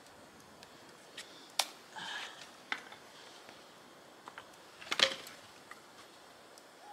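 Wood campfire crackling: scattered sharp pops and clicks, the loudest about five seconds in.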